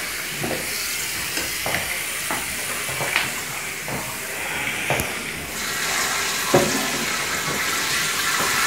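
Water running steadily with a hissing rush, mixed with scattered light knocks and clatters. It grows a little louder and brighter about five and a half seconds in.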